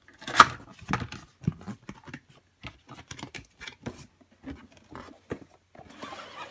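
Cardboard graphics-card box being cut open at the top with a box cutter and handled: a run of short, irregular scrapes and clicks, the loudest about half a second in. Near the end it turns to a steady cardboard rustle as the inner box slides out of its printed sleeve.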